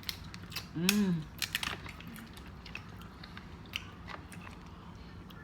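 Close-up eating sounds of a seafood boil: chewing and biting, with sharp clicks and cracks scattered throughout. About a second in there is one short, rising-then-falling hummed "mm".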